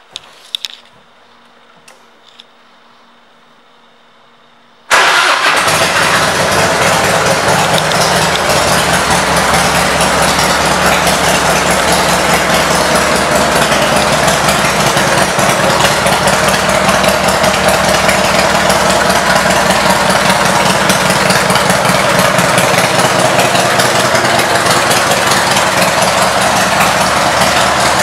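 A few clicks, then the 1998 Harley-Davidson Heritage Softail's V-twin, fitted with aftermarket exhaust pipes, starts about five seconds in and idles steadily.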